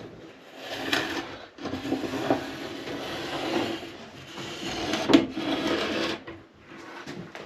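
A tool working on a board of old wood, scraping and rubbing in three stretches of a second or two each.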